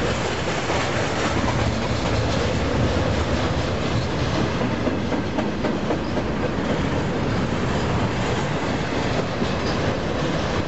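Double-stack intermodal freight cars rolling past close by: steady noise of steel wheels running on the rails.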